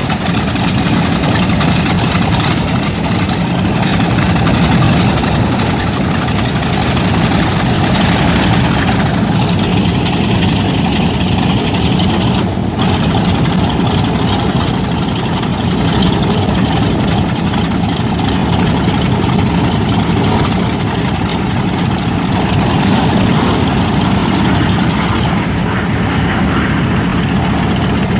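Vintage WWII aircraft's radial piston engine running steadily at low power, a heavy, even rumble.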